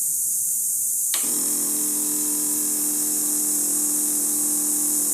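A steady electric whir from the 1998 Yamaha V Star starts abruptly about a second in and holds one even pitch, over the loud high buzz of cicadas. It is a sound the owner cannot account for on a bike that won't start.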